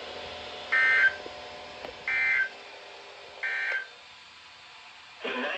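Three short bursts of EAS digital data tones, the SAME end-of-message code that closes a weather warning broadcast, with about a second between them, over a low steady background hum. Just before the end a louder sound begins.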